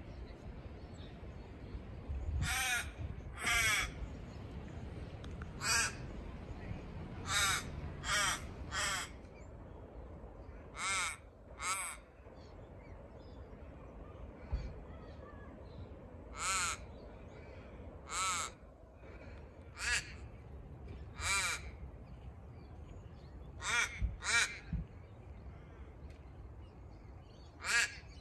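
A crow cawing repeatedly: about fifteen short, harsh caws, often in twos, at uneven intervals over a faint steady background.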